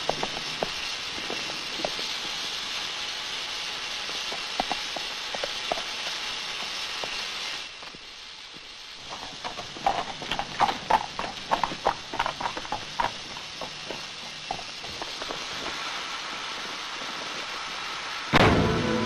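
A steady hiss with scattered knocks that drops away about eight seconds in, followed by a quick, irregular run of clopping steps for a few seconds. Music comes in near the end.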